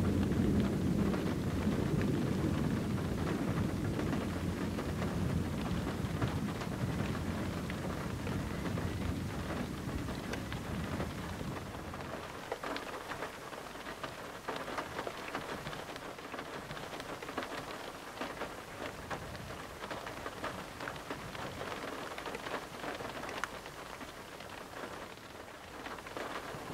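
Heavy rain pattering on a nearby surface during a thunderstorm. A low roll of thunder rumbles through the first half and fades out about halfway through, leaving only the rain.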